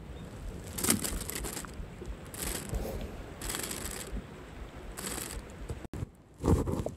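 Plastic bag liner in a cooler box crinkling in about four short rustles, over a low rumble. A loud thump comes near the end.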